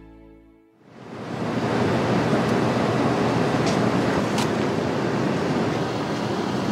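The last of a piece of music fades out, and after a moment's near silence a steady rushing noise of outdoor street ambience fades in and holds.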